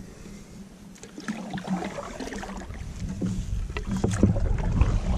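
Canoe hull and water noises carried through a GoPro mounted on the canoe: low rumble and water sounds against the hull with scattered knocks and clicks, getting louder over the last couple of seconds.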